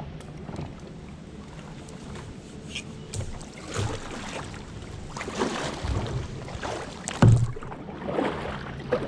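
Kayak paddle strokes: the blades dip and pull through the water with splashing and dripping about once a second from partway through, after a quieter glide. A single sharp thump about seven seconds in is the loudest sound.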